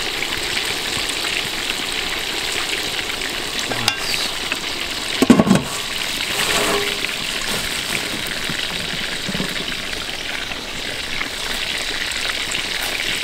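Steady hissing and bubbling of a large aluminium pot of boiling water steaming a whole chicken. About five seconds in, a brief loud clatter as the metal lid is put on the pot.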